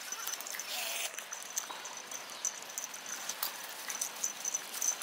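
Two small Japanese Terriers play-fighting on grass: scuffling and pattering of paws, with scattered light clicks.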